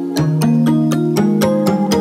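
Background music with a steady beat of about four ticks a second under sustained melodic notes.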